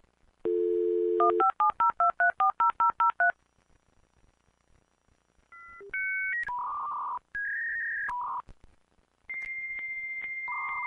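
Dial-up modem connecting: a dial tone for about a second, then a quick run of about a dozen touch-tone digits being dialed. After a short pause the modem handshake begins, a series of held tones that change pitch in steps.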